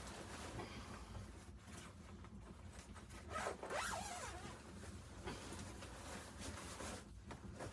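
A zipper being pulled, with fabric rustling; the loudest, longest pull comes about three and a half seconds in.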